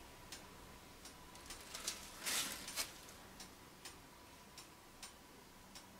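Quiet room tone with faint scattered ticks, and a brief soft rustle about two seconds in.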